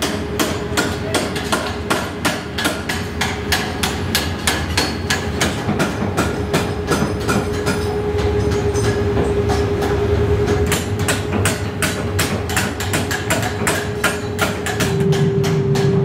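Hammer blows striking metal at an even pace, about three a second, over a steady machine hum and a low rumble: hammering in a steel forge shop.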